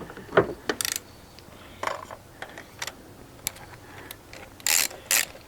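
Scattered metallic clicks and rattles of hand tools as a spark plug socket on an extension and a small ratchet are fitted and turned. There is a quick run of ratchet ticks about a second in and two short, louder rattles near the end.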